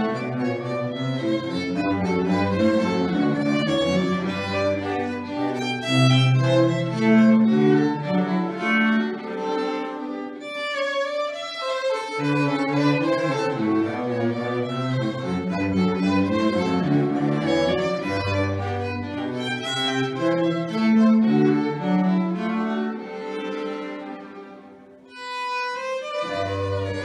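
String quartet of violins, viola and cello playing a classical piece together. The sound thins briefly near the middle and dies down near the end before a new phrase begins.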